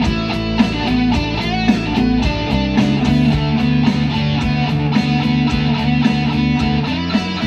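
Instrumental music led by guitar, with a steady beat.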